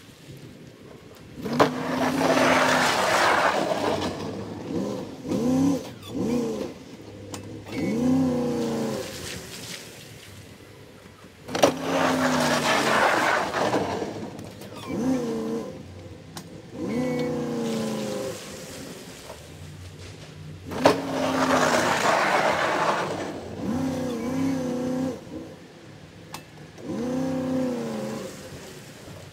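Ram 1500 pickup plowing slush with a front plow blade, in repeated passes about ten seconds apart. Each pass opens with a sharp clunk and a loud scraping hiss of the blade pushing slush across pavement, followed by the engine revving up and down several times as the truck reverses and turns.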